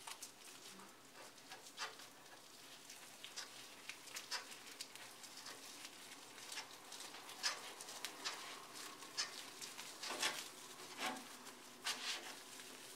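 Plastic cling wrap crinkling and rustling faintly as it is handled and rolled around a sheet of dried mango leather: scattered soft crackles, sparse at first and more frequent in the second half.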